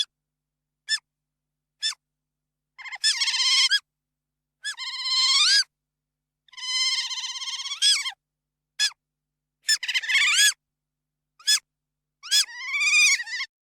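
A series of high-pitched animal calls: short chirps about once a second, mixed with longer cries of up to a second that rise and fall in pitch, each separated by silence.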